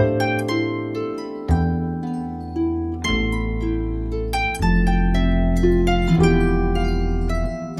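Harp music: a melody of plucked notes over low bass notes that ring on and change every second or so.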